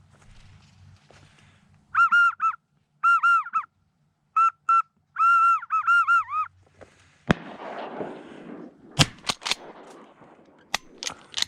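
Goose-like honking calls in quick groups of two to four arched notes, followed by rustling with several sharp clicks near the end.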